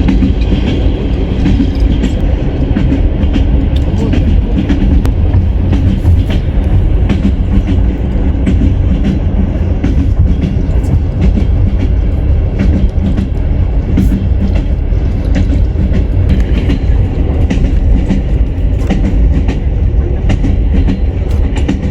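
A train running along the track: a steady low rumble from the wheels and carriages, with the knock of the wheels over the rail joints coming through as repeated clicks.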